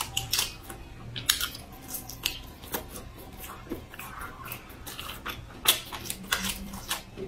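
Close-miked chewing of a skewered sausage, a run of irregular wet mouth clicks and smacks.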